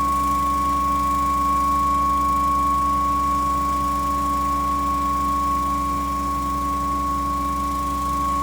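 Putzmeister 47-metre truck-mounted concrete pump running steadily: a low engine rumble under a constant high-pitched whine.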